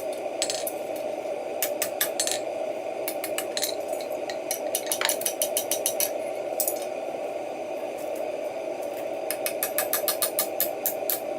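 Quick runs of light metal taps and clinks, in bursts of several strikes a second, over a steady hum from the forge. This fits a blacksmith's hammer tapping hot iron on the anvil.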